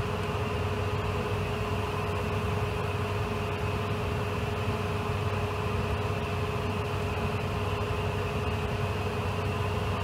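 Steady cockpit noise of a business jet in flight: airflow hiss with a low hum and a steady mid-pitched tone, the aircraft flying on its left engine after the right one was shut down following a bird strike.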